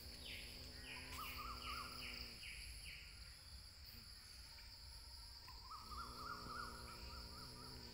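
Steady high-pitched evening insect chorus. Over it come a run of short descending chirps in the first three seconds and two longer wavering animal calls, one at the start and one about six seconds in.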